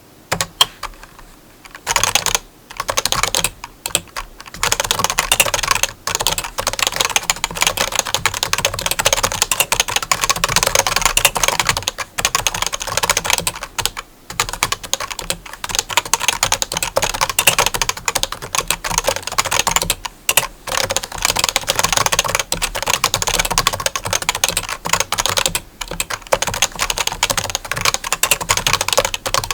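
Fast typing on a keyboard: a dense, continuous run of key clicks with brief pauses, starting about two seconds in.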